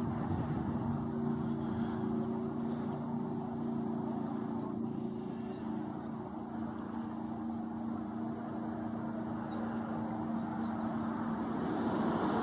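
Power boat engine droning with a steady low hum, which weakens after about six seconds. A broader rushing noise builds near the end.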